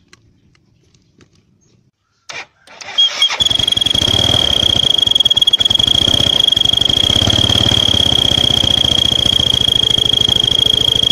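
Motor scooter engine started about three seconds in and then idling, while a child's toy trumpet fitted by hose to the engine's cam-chain breather sounds one steady high-pitched toot over the engine's pulse.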